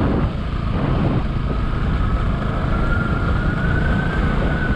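Pulsar motorcycle engine running at a steady cruising speed, ridden along a paved road, with wind rushing over the camera microphone. A thin high whine runs through it and rises slightly in pitch partway through.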